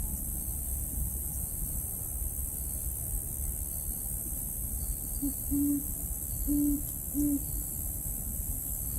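An owl hooting: four low, steady-pitched hoots, the first one brief, spread over about two seconds in the second half, over a steady background hiss.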